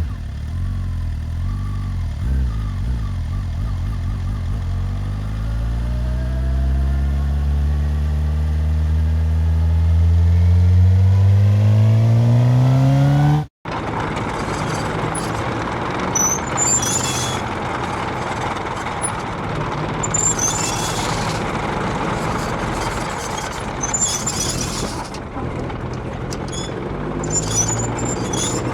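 Motorcycle engine sound effects, two in a row. First an engine note climbs steadily in pitch for about thirteen seconds and cuts off suddenly. Then a rougher, noisier engine runs on with faint high squeaks.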